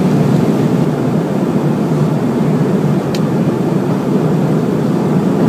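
Steady jet airliner cabin noise in flight: engines and air rushing past the fuselage, heard from a window seat. A brief click comes about three seconds in.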